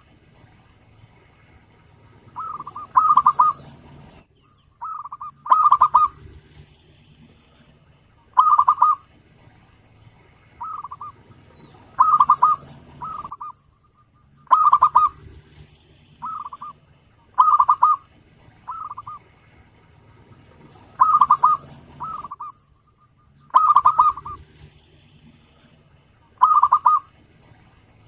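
Zebra dove (perkutut) cooing: a short phrase of several quick, rolling coos that repeats every two to three seconds.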